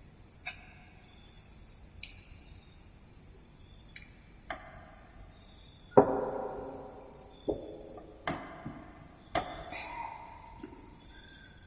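Clinks and knocks against a drinking glass as half a lime is squeezed by hand over it, about nine in all at uneven intervals. The loudest, about six seconds in, rings on briefly.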